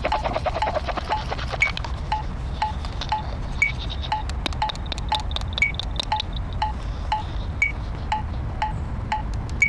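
Short, pure electronic beeps, about two a second and pitched near the note A, with a higher beep on every fourth beat like an accented metronome. Clusters of sharp clicks come in the first second and again around the middle, over wind rumbling on the microphone.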